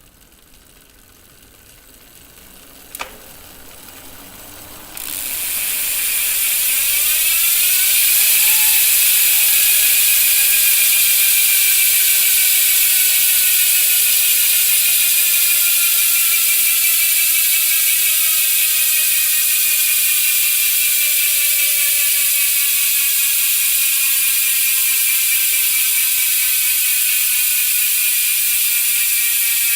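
Bicycle rear freehub spun up with a faint whir and a click, then about five seconds in it starts freewheeling. From there the pawls give a loud, fast ratcheting buzz, and its pitch falls slowly as the wheel coasts down.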